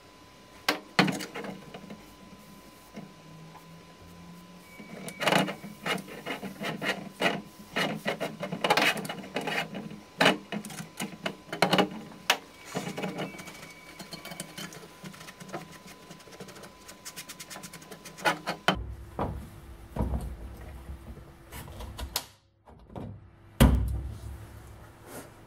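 Irregular clicks, taps and knocks of a metal gas mask canister and its lid being handled on a steel workbench, with one louder knock a couple of seconds before the end.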